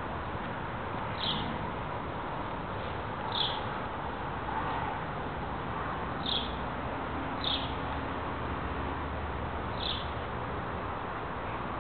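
A bird chirping, one short high note every two to three seconds, over a steady outdoor hiss.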